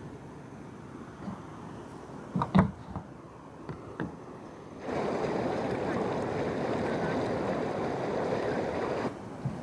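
A few knocks as a plastic container's lid is handled, then a steady rush of water for about four seconds as the blue plastic container is dipped into the river and fills.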